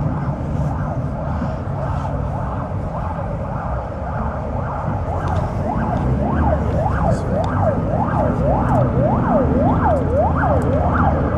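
An emergency vehicle siren wailing up and down about twice a second, coming in about halfway through and growing clearer, over the steady low road noise of a car's cabin.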